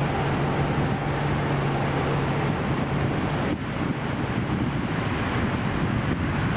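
Steady rush of road traffic, with a low engine hum that fades out about three seconds in.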